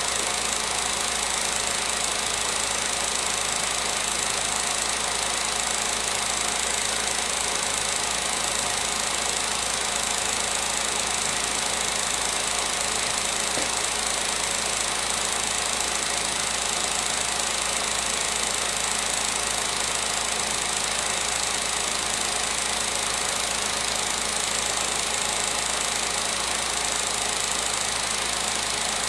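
16mm film projector running, giving an even, unchanging mechanical noise.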